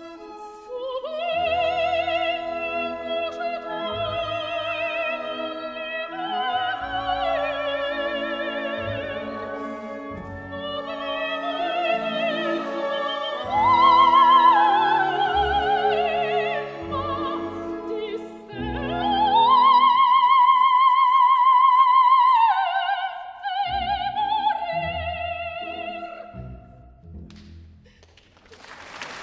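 Operatic soprano singing an aria with full orchestral accompaniment, with strong vibrato, climbing to a long, loud high note about two-thirds through. The voice then ends its phrase and the orchestra closes the piece near the end.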